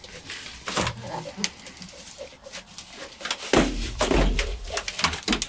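A sheet of butyl sound-deadening mat being handled and fitted to a truck's floor pan: rustling, scraping and small sharp knocks, with a heavier, deeper thump about three and a half seconds in.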